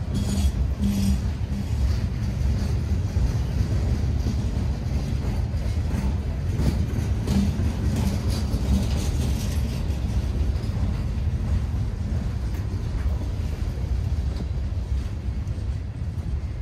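Norfolk Southern freight train rolling past at street-running speed: a steady low rumble of the cars on the rails with scattered wheel clicks.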